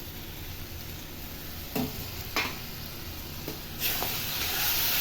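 Spice masala frying in a hot kadai, with a spatula scraping and knocking against the pan a few times. Nearly four seconds in, a little water goes into the hot masala and the sizzle jumps suddenly to a loud hiss.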